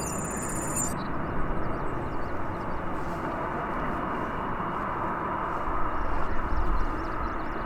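Jet airliner engine noise, a steady rumble that swells briefly near the end.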